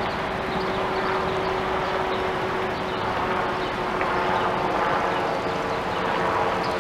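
Steady city traffic noise with a thin, steady hum running through it.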